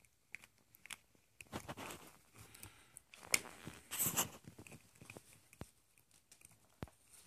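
A puppy chewing and biting a plastic ballpoint pen: irregular clicks and crunches of teeth on the plastic barrel, loudest a little after three seconds and around four seconds in.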